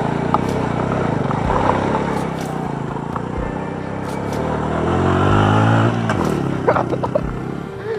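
Small single-cylinder motorcycle engine running, revving up about halfway through as the bike pulls away over grass, then easing back.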